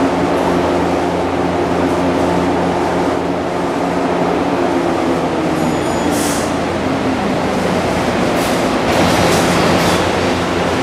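Shinano Railway 115-series electric train standing at the platform, humming steadily. A brief high sound comes about six seconds in, and a few short hisses follow a little later.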